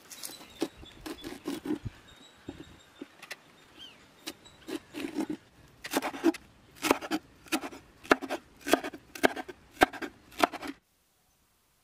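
Large kitchen knife chopping raw goat offal (liver, lungs, heart) into small pieces on a cutting board: irregular knocks of the blade on the board, sparse at first and then quicker and harder about halfway through, stopping abruptly near the end.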